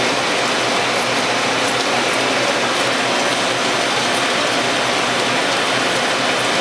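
Steady machinery noise with a dense hiss, unchanging throughout, as from running machines in a machine shop.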